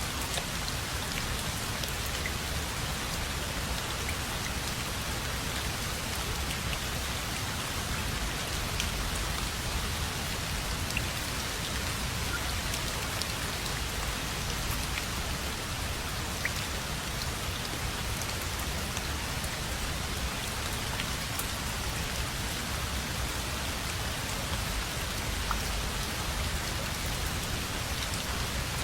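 Steady rainfall, drops pattering on a surface, with scattered small ticks of individual drops.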